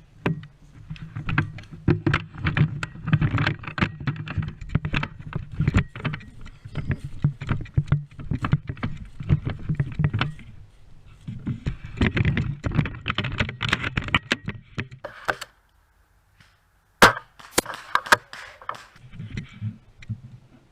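Dense, irregular rustling, clicks and knocks over a low steady rumble, the sound of a camera being carried on the move. It drops away briefly near the end, then one sharp crack comes, followed by more rustling.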